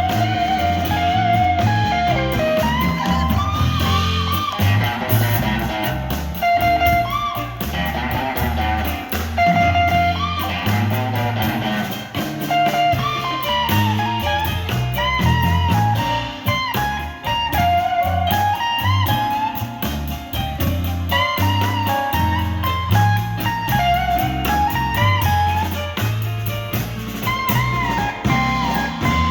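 Live blues band playing an instrumental break: a guitar lead with bent notes over bass and drums.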